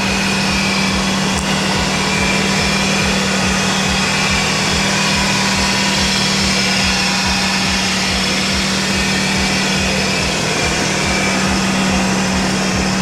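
A car engine running at a steady speed, with a constant drone and an even low pulsing and no change in pitch.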